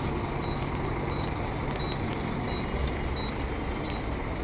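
Scania multi-axle coach's diesel engine idling, a steady low rumble. A faint short high beep repeats about every one and a half seconds.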